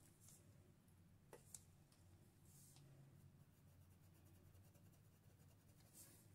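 Near silence, with faint soft scratches and a couple of small clicks from a fine paintbrush dabbing and stroking paint onto cloth.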